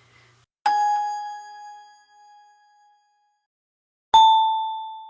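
Two game show ding sound effects played back one after the other: a single bell ding about a second in that rings out and fades over about two seconds, then a second, slightly lower ding near the end.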